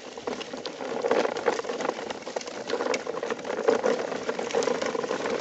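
Plastic toy dump trucks rolling in a line over gravel: a steady crunching rattle of hard wheels on small stones.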